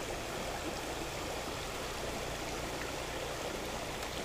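Shallow mountain creek running over rocks: a steady rush of flowing water.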